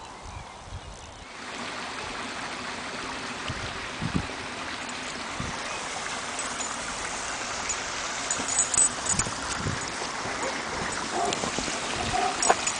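Small rocky stream running over stones: a steady rush of water that comes up about a second in and holds, with a few soft low thumps.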